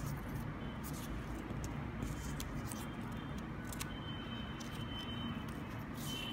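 Steady low background rumble, with a few faint soft clicks and rustles from satin garment labels being handled and turned by hand.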